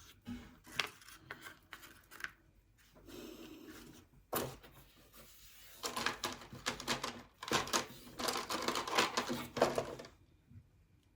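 Rapid clicking, tapping and scraping of craft materials being handled on a tabletop, busiest in the second half and stopping about a second before the end.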